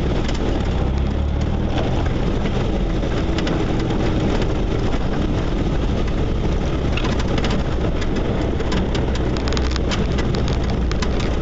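Off-road vehicle driving along a rough dirt track, heard from inside the cab: a steady low engine drone with frequent rattles and knocks from the vehicle over the bumps, more of them in the second half.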